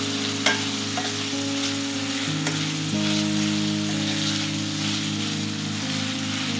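Minced meat and vegetables sizzling in a stainless steel frying pan as they are stirred with a wooden spatula, with a few sharp knocks of the spatula against the pan, the loudest about half a second in.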